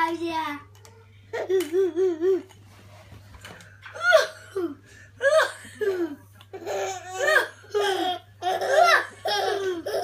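A baby laughing in short bursts of belly laughter, mixed with an older child's playful vocal noises; the bursts come closer together over the last few seconds.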